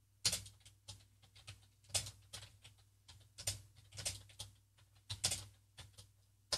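Typing on a computer keyboard: a run of irregular keystroke clicks with uneven pauses between words.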